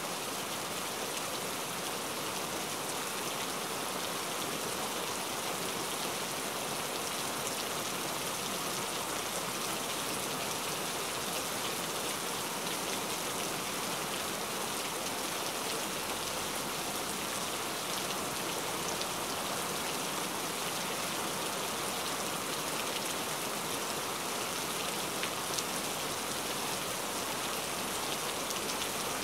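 Steady rain falling, an even hiss laced with many fine drop ticks.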